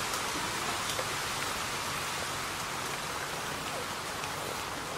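Steady rain from a typhoon falling on leaves: a dense, even hiss with the faint ticks of single drops scattered through it.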